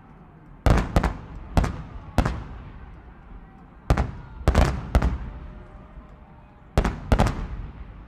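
Fireworks bursting: about ten sharp booms in three clusters, each trailing off in a rolling echo.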